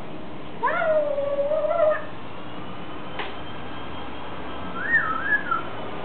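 African grey parrot calling: one long call that rises and then slowly falls, then some three seconds later a short two-note whistle.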